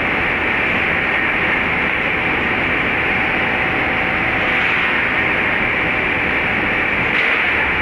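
Steady, unchanging machine noise: a constant loud hiss and drone with a faint steady tone in it.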